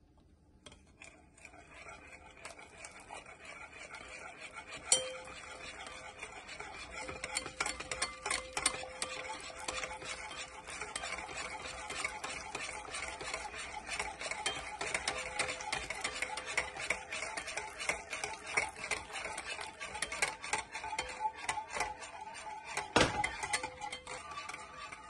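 Wire balloon whisk beating egg and milk in a glass bowl: a fast, continuous run of clicks and scrapes of the wires against the glass, with two sharper knocks, about five seconds in and near the end.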